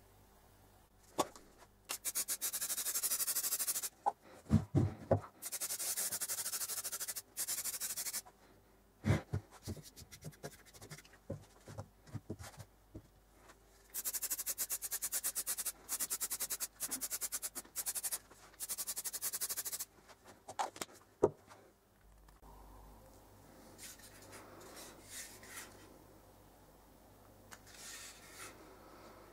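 Aerosol can of high-gloss spray varnish hissing in several spurts of one to two seconds each, with a few knocks and thumps between them as the can and the wooden knife block are handled.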